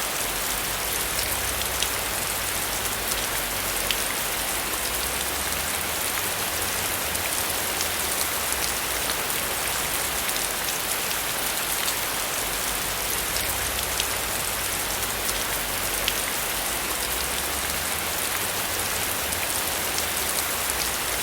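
Steady rainfall, an even hiss of rain with individual drops ticking sharply here and there.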